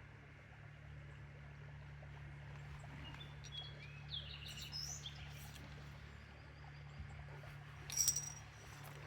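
A bird chirping a few times about three to five seconds in, over a steady low hum. A short, sharp sound about eight seconds in is the loudest thing heard.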